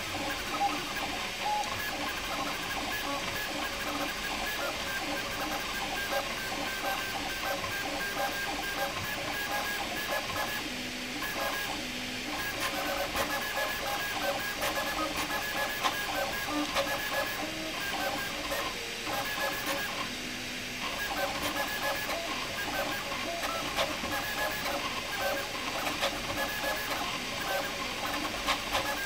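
Prusa MK4 3D printer printing fast under input-shaping firmware: the stepper motors whine in quick, shifting tones as the print head moves, over a steady hiss. It goes briefly quieter twice.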